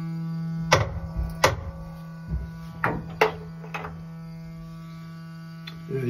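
Gas pressure regulator on a boiler's gas line humming steadily, a buzzing drone with several overtones; the noisy regulator is taken for one that will give trouble and should be reported to the gas utility. Four sharp knocks sound in the first few seconds.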